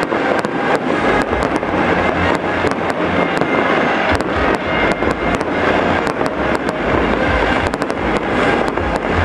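Fireworks display: a continuous barrage of aerial shells bursting, a dense run of sharp bangs and crackles close together with no break.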